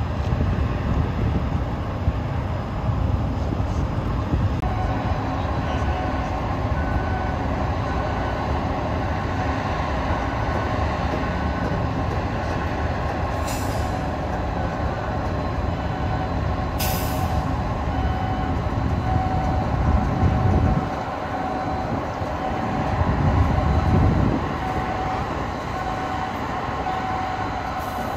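Ship-to-shore container crane running while it hoists a suspended load: a steady low mechanical rumble with a repeating warning beep that starts a few seconds in. The rumble swells twice near the end, and two brief high clicks come in the middle.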